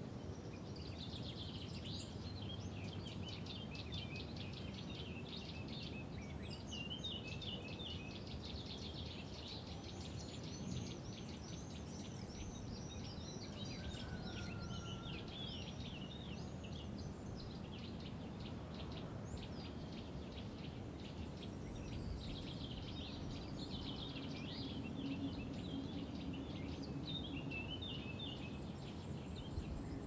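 Steady rush of a mountain stream over rocks, with many small birds chirping and trilling rapidly over it. The birdsong thins out for a few seconds in the middle, then picks up again.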